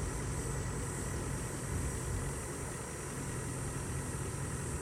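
Vehicle engine idling steadily: a constant low hum with no change in speed.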